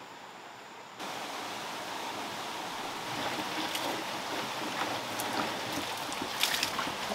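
Steady running water from a bamboo pipe splashing into a wooden trough, starting suddenly about a second in, with a few light knocks as a round tray is handled and set on the trough.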